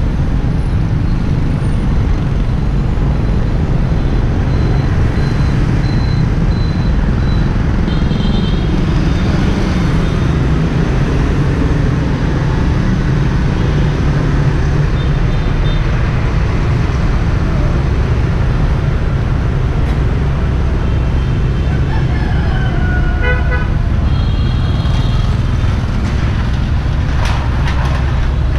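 Busy street traffic of motorbikes and cars running by, with a steady rumble and several short horn beeps scattered through, heaviest in the second half.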